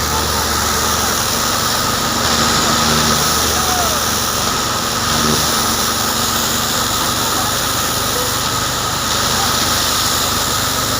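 A farm machine's engine running steadily at a constant speed, with a steady low hum and an even hiss over it.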